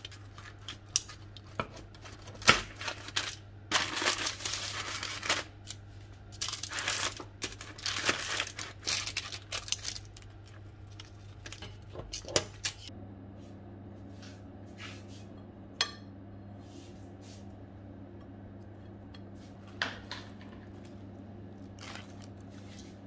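Kitchen scissors cutting through the crisp baked crust of a flammekueche on baking paper: a run of crunching snips and paper rustling over about the first ten seconds. After that it goes quieter, with a steady low hum and a few light taps.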